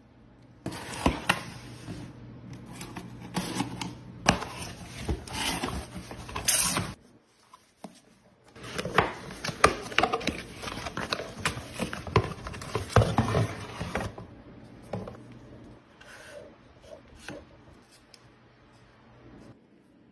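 Rustling, rubbing and scraping of packaging and small items being handled and unboxed. The sound comes in two busy stretches with sharp clicks and taps, then thins to a few quieter taps.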